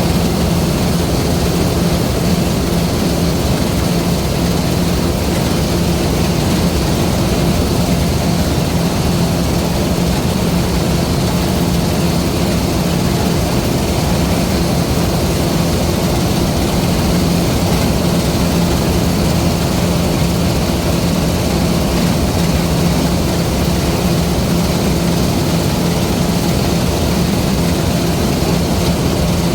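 LOVOL RG130 EVO rice combine harvester running steadily: a constant machine drone with a low hum that holds one pitch.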